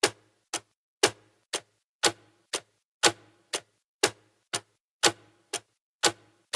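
Clock ticking: a steady tick-tock, two clicks a second, the louder tick on each second and a softer tock half a second after it.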